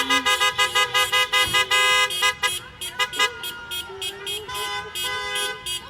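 Car horns honking in a fast run of short beeps, several horns of different pitches overlapping, with one longer held blast about two seconds in and sparser toots after that.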